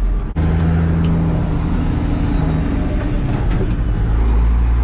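A heavy truck's engine running steadily under way, heard from inside the cab. There is a brief dropout about a third of a second in.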